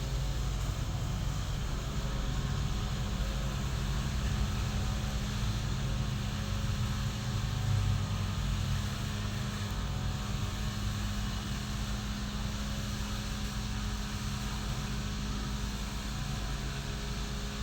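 Steady low motor hum with a held low tone, unchanging throughout.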